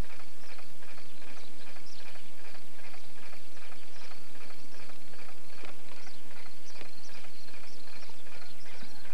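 Steady clip-clop of horse hooves at an even trot, about four beats a second.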